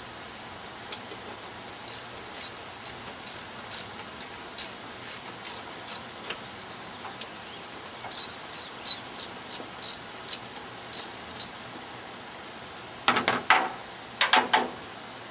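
Socket ratchet clicking in short strokes, about two clicks a second, as bolts are worked loose. A few louder metallic clanks come near the end.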